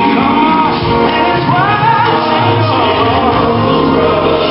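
Recorded gospel song playing over loudspeakers, with a lead singing voice sliding between notes over a full instrumental backing.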